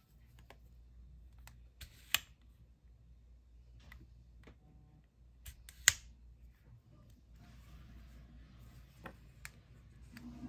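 Olympus mju-II compact film camera clicking as it is handled: three pairs of sharp clicks, the two clicks of each pair less than half a second apart, the pairs about four seconds apart.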